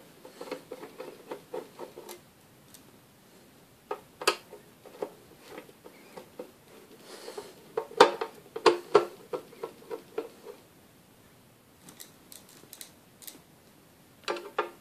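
Screwdriver turning out the screws of a bench power supply's steel case cover: several bursts of rapid clicking and scraping, with short pauses between them.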